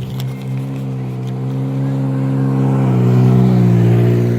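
A car's engine approaching and growing louder as a steady low hum, its pitch rising slightly. The sound cuts off abruptly right at the end.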